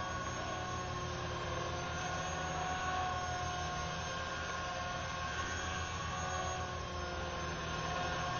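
Electric Align T-Rex 450 SE V2 RC helicopter hovering: a steady whine from its brushless motor and gears over the fast chop of the rotor blades.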